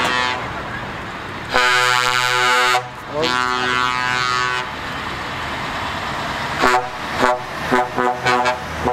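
Truck horns sounding as trucks drive past with their diesel engines running: a long blast about a second and a half in, a second long blast right after, then a quick run of about six short toots near the end.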